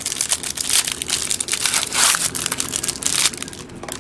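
Crinkling and crackling of a trading card pack's wrapper being handled and torn open.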